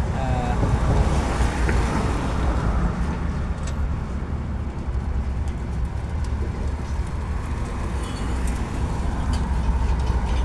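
A car engine running steadily at idle, a low even rumble, with a few faint light clicks over it.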